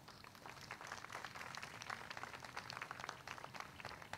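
Faint, light scattered applause from a small audience, with many irregular claps.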